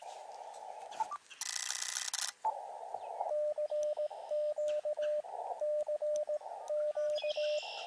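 Morse code tone from an Elecraft KX2 transceiver, keyed on and off in short runs of dots and dashes at one steady pitch, alternating with the narrow band of receiver hiss heard between sends. About a second and a half in, a loud burst of broad hiss lasts about a second.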